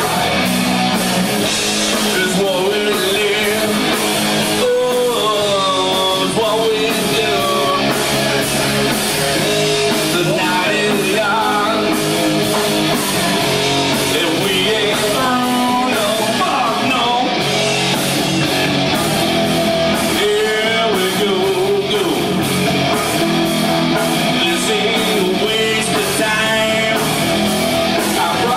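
Rock band playing a loud song live: guitars, drums and singing.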